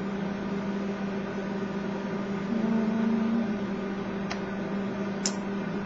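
A steady machine hum, rising slightly in pitch for about a second starting two and a half seconds in, with a couple of faint clicks near the end.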